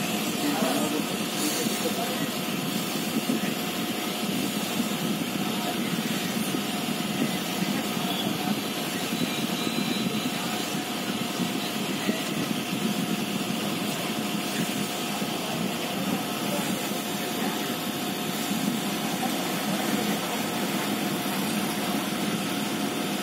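A steady mechanical hum with a faint steady whine running through it, no starts or stops.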